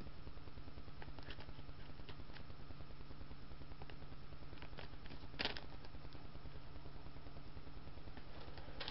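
Steady low hum of room and microphone noise, with a few faint crinkles and clicks from a luggage tag's clear plastic packaging being handled. One sharper crinkle comes about five and a half seconds in.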